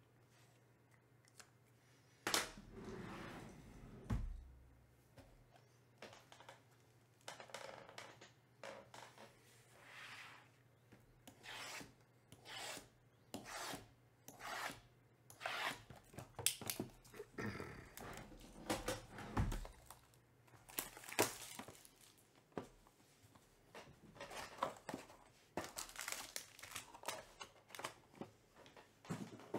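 Plastic wrap on sealed Topps Composite trading-card boxes being ripped and peeled off, with cardboard boxes rubbing and sliding as they are handled; a run of irregular rips and rustles begins about two seconds in.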